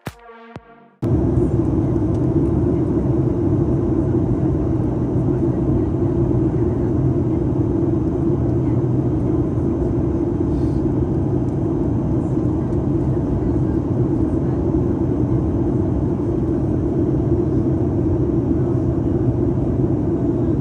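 Steady rumble of engine and airflow noise inside the cabin of a Boeing 737 airliner in flight, taking over about a second in as a short electronic music track cuts off.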